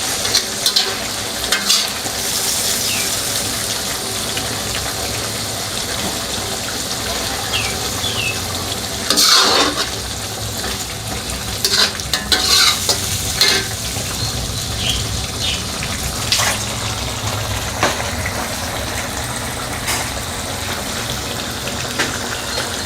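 Black pepper chicken sizzling as it fries in a pan, stirred with a utensil that scrapes and knocks against the pan now and then, the loudest scrape a little under halfway through.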